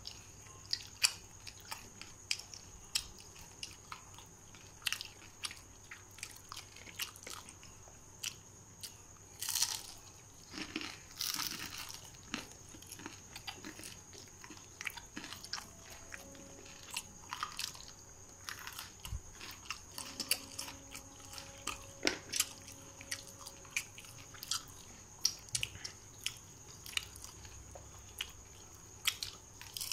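Close-up eating sounds: biting into and chewing fried chicken pakora, a steady run of short wet mouth clicks and crunches.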